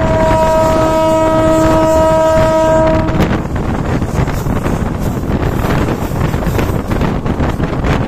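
Diesel locomotive's air horn sounding one long blast of about three seconds, a chord of several notes with a lower note joining shortly after it starts. Wind buffeting the microphone and the train's running noise carry on underneath.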